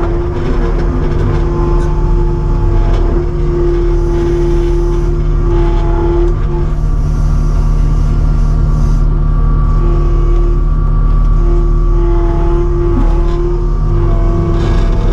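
Kubota SVL75-2 compact track loader's diesel engine running steadily as the machine is worked, with a steady whine that drops out about six seconds in and comes back near ten seconds.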